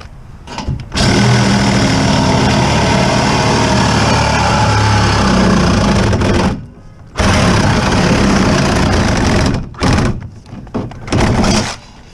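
Handheld power driver running in bursts, most likely backing out screws: one long run of about five seconds, a second of about two and a half seconds, then two short bursts.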